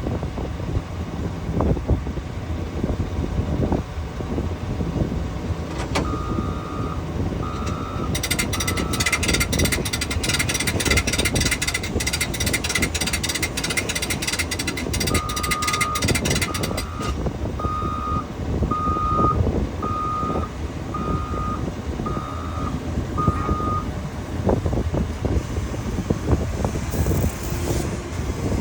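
Backup alarm beeping: three beeps about six seconds in, then eight more at about one a second from the middle on. A steady low machine noise runs throughout, and a loud rattling hiss lasts several seconds in the middle.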